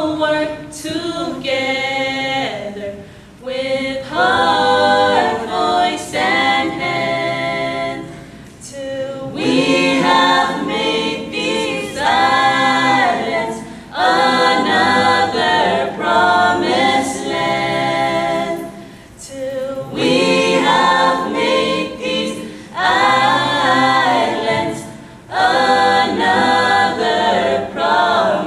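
A small mixed group of men and women singing without accompaniment into handheld microphones, in phrases of a few seconds with short breaks for breath between them.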